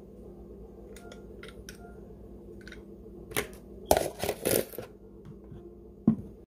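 Yellow hinged plastic lemon squeezer being handled: light clicks, then a clatter of knocks about three to five seconds in. A single sharp thump near the end as the plastic cup is moved.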